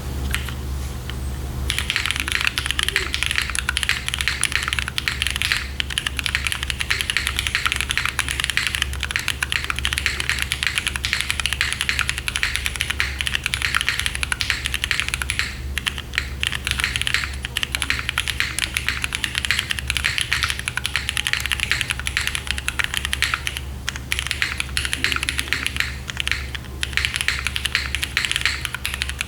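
Continuous typing on a gasket-mounted Neo60Cu 60% mechanical keyboard with modded vintage Cherry MX Black linear switches and an aluminium plate. The typing begins about two seconds in and has a couple of brief lulls. A steady low hum runs underneath.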